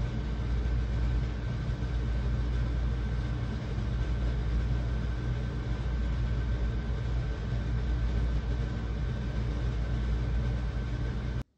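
Steady low mechanical rumble with a faint, steady high whine above it, cutting off abruptly near the end.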